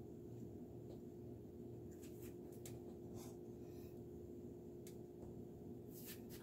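Quiet kitchen room tone: a steady low hum with a few faint clicks and light rubbing from hands handling things on the counter.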